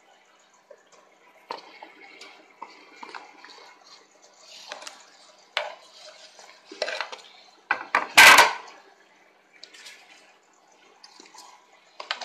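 Kitchen dishes and cutlery clinking and clattering as they are handled, a scattering of knocks and taps with one louder clatter about eight seconds in.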